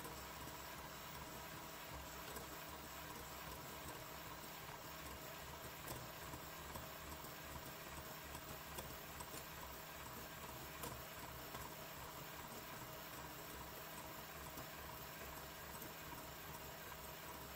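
Electric hand mixer running steadily, its wire beaters whipping egg whites to a foam in a glass bowl, with a few light clicks of the beaters against the glass.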